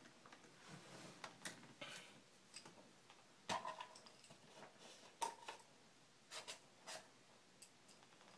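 Faint, scattered clicks and light taps from a screwdriver and small laptop parts being handled on a table. The loudest tap comes about three and a half seconds in.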